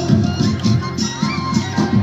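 Jhumur folk dance music: a quick, steady drum rhythm with a held melody line above it.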